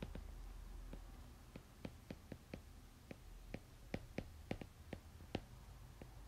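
Stylus tapping on a tablet screen during handwriting: an irregular run of light clicks, a few a second, over a faint steady low hum.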